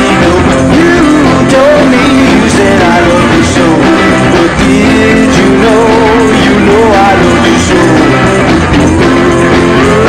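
Background music: a song with a singing voice over a full band with guitar.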